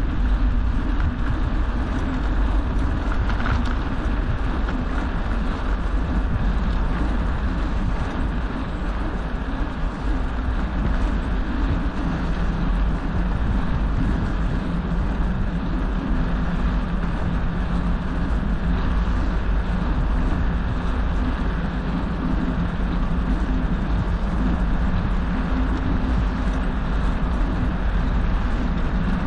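Wind buffeting the microphone of a moving bicycle, with the tyres rolling on smooth asphalt, a steady rushing noise.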